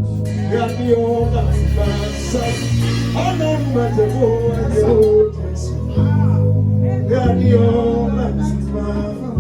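Live gospel music: a singer's wavering, melismatic vocal line over sustained chords and a deep bass.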